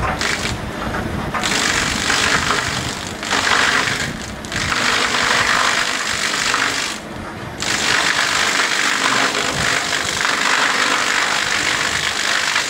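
Butt end reducer's milling shaft, set beneath the log, cutting the root flare off a log held in a crane grapple, a loud steady chipping of wood. It drops away briefly about four seconds in and again about seven seconds in.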